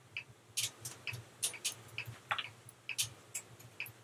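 Light, irregular clicks and taps, about two or three a second, as cherry tomatoes are halved with a small knife over a glass baking dish and the halves drop into it.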